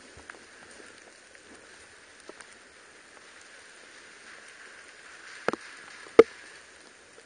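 Rain falling on woodland foliage: a steady patter with scattered small drips. Two sharp knocks come about five and a half and six seconds in; the second is the loudest sound.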